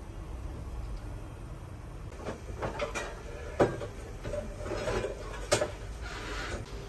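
A few sharp knocks and clatters of objects being handled, the loudest about three and a half and five and a half seconds in, over a low steady rumble, with a short hiss near the end.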